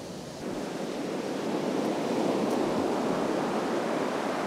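Ocean surf breaking and washing up a sandy beach: a steady rushing noise that jumps up about half a second in and swells toward the middle.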